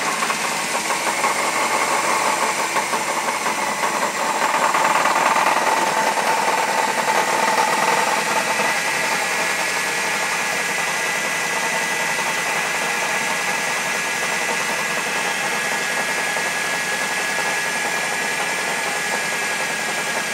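1995 Saturn SL2's 1.9-litre four-cylinder engine idling just after a start, with a rumbling knock from the bottom of the engine. It is a little louder for the first several seconds, then settles to a steady idle. The owner traces the noise to the bottom end: the engine needs to be rebuilt.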